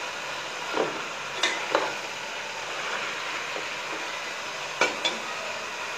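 Whole chicken and masala sizzling in a large aluminium pot, with a steady hiss and about five sharp knocks of a metal spatula against the pot as the chicken is turned.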